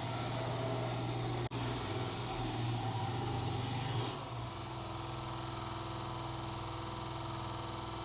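An electric shop power tool running steadily, used to cut and shape a wooden knife handle; its sound drops out for an instant about one and a half seconds in and changes character about four seconds in.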